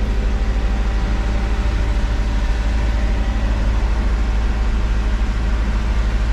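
A boat's engine running at a constant speed, a steady low drone heard from inside the cabin.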